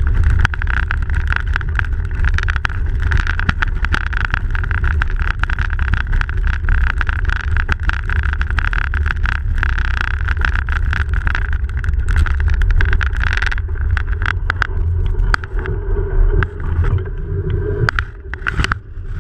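Bicycle tyres rolling over packed snow, with a loud low rumble of wind buffeting the bike-mounted camera and frequent small rattling clicks. The noise eases and turns uneven in the last few seconds as the bike slows near a building.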